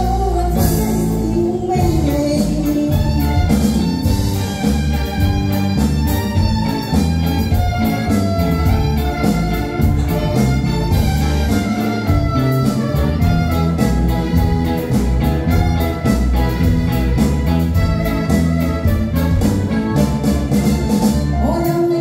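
Live band music: drum kit, electric guitar and keyboards playing a steady-beat pop song, with a woman singing into a microphone over it.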